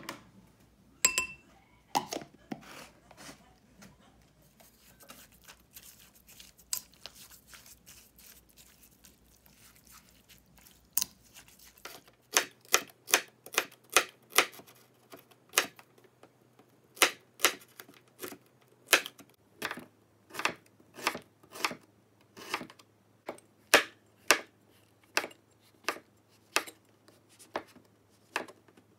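A chef's knife slicing red bell pepper and shiitake mushrooms on a cutting board, the blade knocking the board in a steady run of sharp strokes, roughly two a second, from about twelve seconds in. Before that, softer rustling with a couple of ringing clinks near the start.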